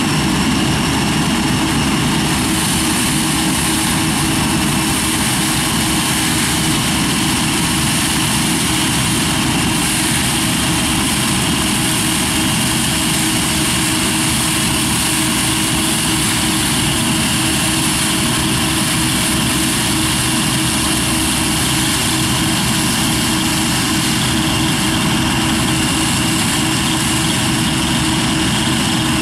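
Claas Dominator 88 SL Maxi combine harvester running steadily under load while threshing rye: a constant engine drone with a steady whine from the machinery above it.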